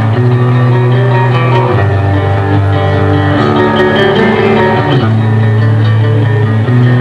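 Pop-punk band playing live, an instrumental stretch with no singing: electric guitar, bass guitar and drums playing held chords that change about every second and a half.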